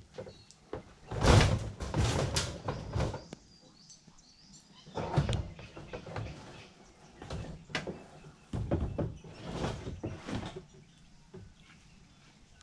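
Plastic kayak being shifted and loaded onto a ute's roof rack: a run of knocks and thumps, loudest about a second in, with more bunches of knocks later on.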